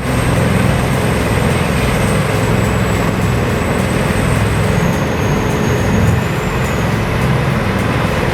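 Large industrial wood chipper running steadily, a dense engine-and-rotor roar with a thin high-pitched whine above it that changes pitch around five seconds in.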